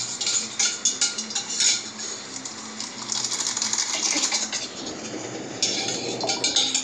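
A spoon stirring liquid drink mix in a steel bowl, with repeated quick clinks and scraping against the sides of the bowl.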